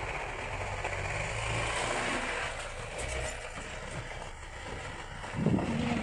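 Vehicle driving along a rough forest track: a steady engine rumble mixed with ride and wind noise, with a louder burst of sound near the end.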